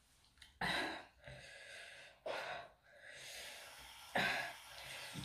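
A person coughing three times, each a short cough starting suddenly, spaced about one and a half to two seconds apart.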